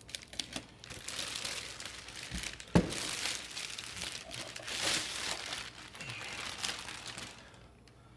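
Clear plastic bag crinkling and rustling as a car amplifier is worked out of it, with one sharp knock a little under three seconds in. The crinkling stops shortly before the end.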